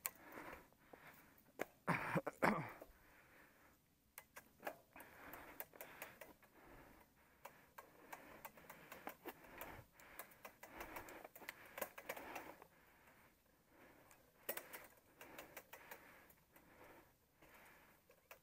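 Mountain bike rolling along a dirt trail: irregular clicks and rattles from the bike over the bumps, with a hiss of tyre and riding noise and a louder rush about two seconds in.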